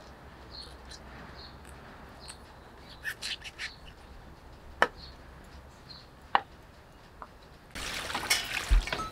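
A cleaver knocking sharply on a wooden chopping board a few times, with faint bird chirps behind. Near the end, water starts pouring from a plastic dipper into a metal bowl.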